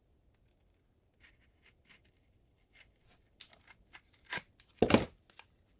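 Product packaging being handled and opened: scattered light clicks and rustles from about a second in, growing busier, with one louder crackle near the end.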